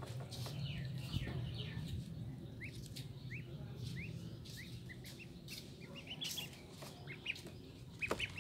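Ducklings peeping: short, high, upward-sliding peeps, one or two at a time at first and coming faster in the second half. A low hum sits under the first couple of seconds, and there is a sharp click near the end.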